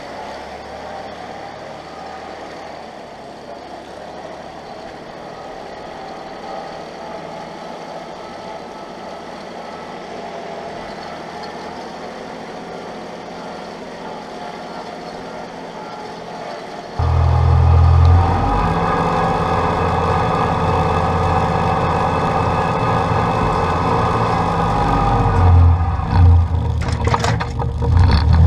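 Massey Ferguson 1523 compact tractor's diesel engine running steadily as the tractor is driven. About two-thirds of the way through it abruptly becomes much louder and heavier. A few short knocks come near the end.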